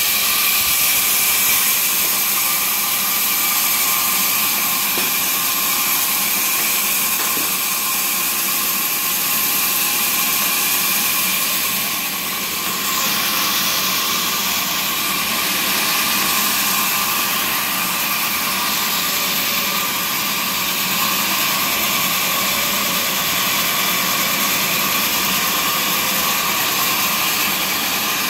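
Sawmill woodworking machinery running steadily, a constant whine over a loud, high hiss, dipping briefly about twelve seconds in.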